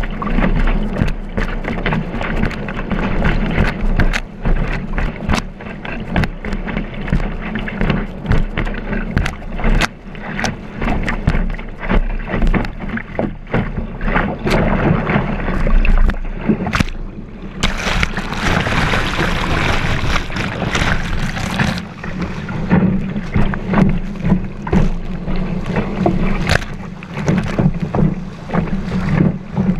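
Water rushing and splashing along a kiteboard as it skims over choppy sea, heard from a camera mounted on the board's deck, with many sharp slaps and taps of chop and spray and wind buffeting the microphone. A louder, hissier rush of spray lasts a few seconds about two-thirds of the way in.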